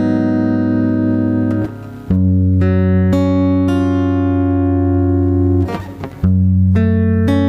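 Instrumental karaoke backing music with held guitar notes over a steady bass line, no singing. The music dips briefly twice, about two seconds in and again near six seconds.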